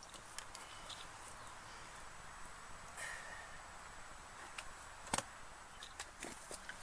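Faint outdoor ambience with scattered light clicks and taps, and a single sharper knock about five seconds in.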